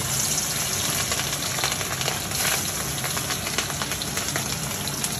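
Hilsa fish steaks frying in hot oil in a wok: a steady sizzle with scattered crackles.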